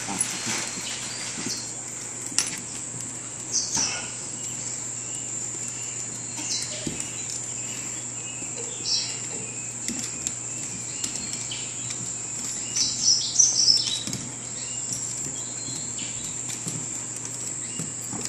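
Maine Coon kitten and toy poodle puppy wrestling on a hardwood floor: scattered short scuffles and scratches of paws and claws, busiest about 13 seconds in, over a steady high hiss.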